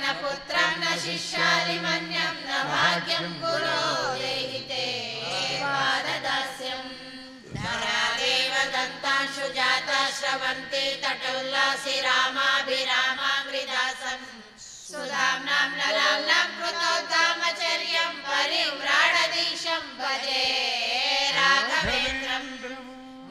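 Sung devotional chanting of a Sanskrit prayer verse to Sri Raghavendra, in long melodic phrases of about seven seconds each with short pauses for breath between them.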